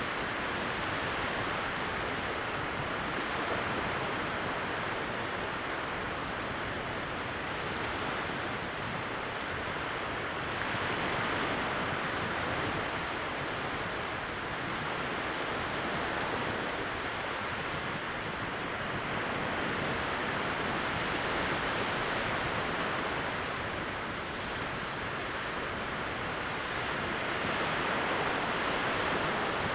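Gentle surf of a calm sea breaking far out beyond wide low-tide sand flats: a steady wash of water that swells a little every several seconds.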